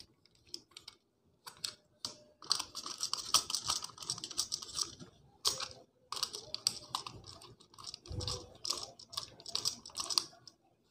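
Small screwdriver tightening the brass terminal screws on a plastic switch board: a quick, irregular run of small metal clicks and scrapes, with short pauses between screws.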